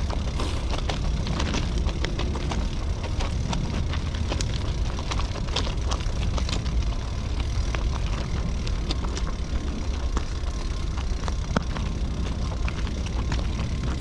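Intermodal freight train's double-stack well cars rolling past on the rails: a steady low rumble with frequent sharp clicks and clanks from the wheels and car connections.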